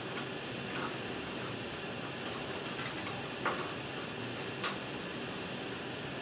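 Steady hum of an air handling unit, with a few light clicks and taps from wires being handled against the sheet-metal light fixture and ballast, the sharpest about halfway through.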